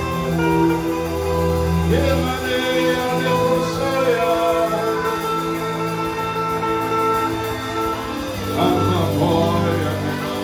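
Worship music: an electronic keyboard holding long sustained chords, with a man's voice singing a chant through a microphone in short phrases, about two seconds in and again near the end.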